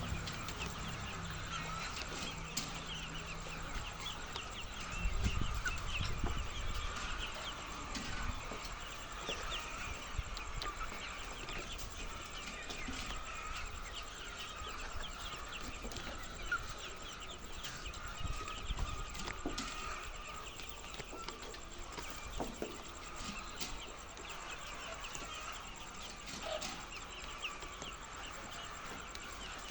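A large flock of laying hens clucking and calling together, many short overlapping calls forming a continuous chatter. A dull low thump sounds about five seconds in.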